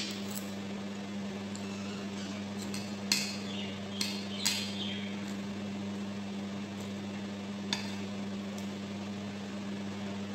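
Metal spoon clinking against a ceramic bowl during eating, a few separate clinks, the loudest about three seconds in and another near the end, over a steady low hum.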